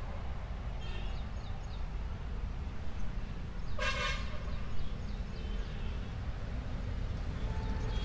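Outdoor background of a steady low rumble, with a short vehicle horn toot about four seconds in and a few faint high chirps.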